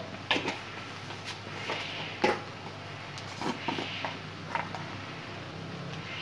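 Egg, tomato and spice mixture sizzling gently in hot oil in a wok, with a scattering of sharp clicks and knocks from kitchen utensils, the loudest about two seconds in.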